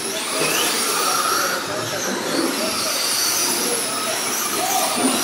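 Several RC dirt oval race cars lapping a clay track: a steady mix of motor whine at several pitches that drift up and down, over a hiss of tyres on dirt.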